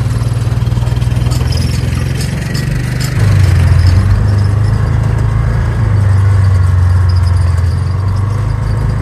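An engine running steadily, which gets louder and a little deeper about three seconds in.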